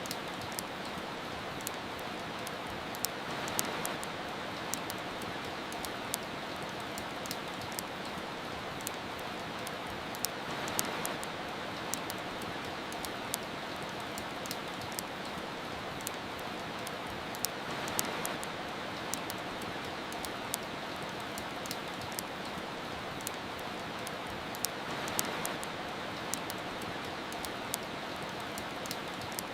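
Steady rain hiss with a fireplace crackling through it in sharp, irregular pops several times a second. The hiss swells gently about every seven seconds.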